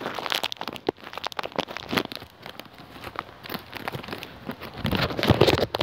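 Crunchy biscuits being chewed: a dense run of crackling crunches, louder and fuller near the end.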